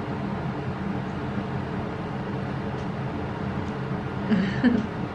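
Steady low mechanical hum with a light hiss, like a running fan or appliance motor, with a brief faint voice about four seconds in.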